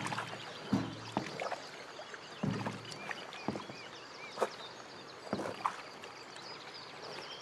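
A small boat on the water: a steady wash of water with scattered hollow knocks of the hull or gear, and a few short high squeaks about three seconds in.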